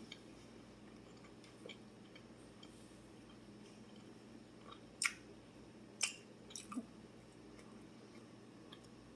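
A person chewing a bite of grilled bratwurst, faint, with a few short sharp clicks about five and six seconds in.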